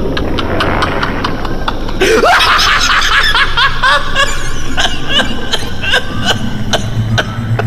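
A person laughing, starting about two seconds in, over a run of sharp clicks.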